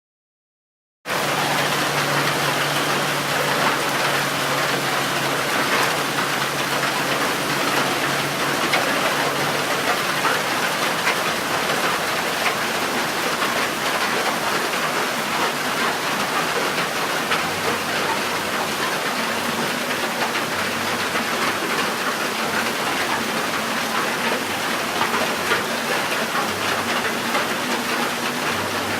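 Steady rain falling, a dense hiss of many drops, starting suddenly about a second in. A faint low hum runs underneath.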